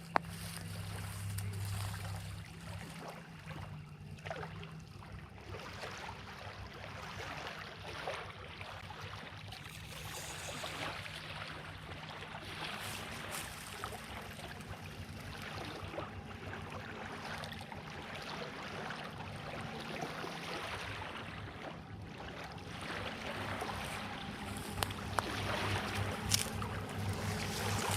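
Reservoir water lapping and splashing gently against the shoreline in small irregular slaps, over a steady low hum. A single sharp click comes near the end.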